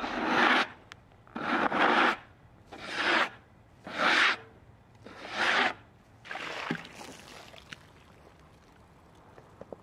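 A hand brush sweeping sawdust off the sawn face of a maple slab, in six brisk strokes about a second apart over the first seven seconds.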